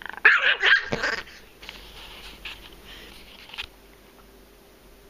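Small teacup Chihuahua-terrier mix snarling and barking in a short, loud outburst about a quarter of a second in, followed by a few seconds of quieter growling: food-guarding aggression.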